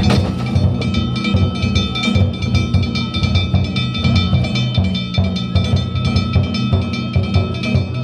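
Danjiri festival music: taiko drums beaten fast and without pause, with metal hand gongs ringing steadily over them.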